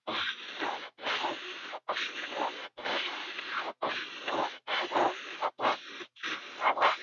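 Gravity-feed airbrush hissing as it sprays paint, in short bursts of about a second, each cut off sharply.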